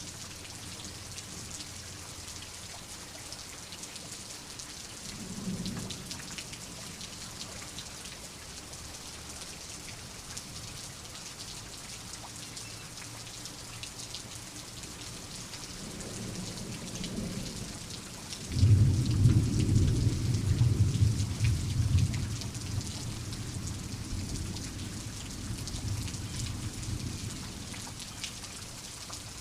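Steady rain pattering, with thunder rumbling low in the background twice in the first half, then a loud roll of thunder breaking suddenly about two-thirds of the way in and slowly rumbling away.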